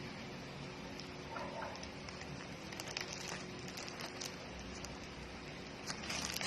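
Rustling and crinkling of a parcel's plastic packaging being handled and opened, with scattered light clicks and a louder crackle near the end.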